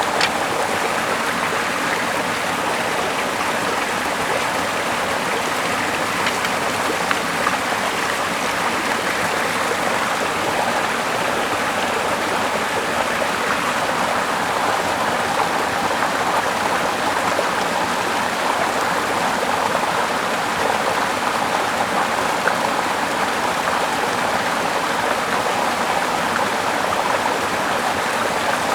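Steady rushing of flowing water, like a stream, unchanging throughout.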